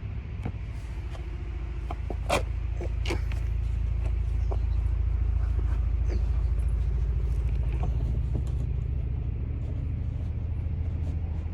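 A vehicle engine idling, a steady low rumble that swells a little midway. It is overlaid with scattered clicks and knocks of hands working at the car's trim, the loudest about two and three seconds in.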